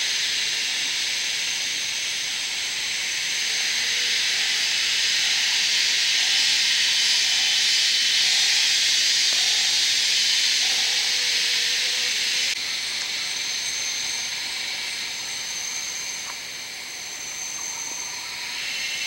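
Dense, steady high-pitched chorus of cicadas and other jungle insects, with a thin steady whine on top that grows stronger after an abrupt change about twelve seconds in. A faint, lower call repeats about once a second in the middle.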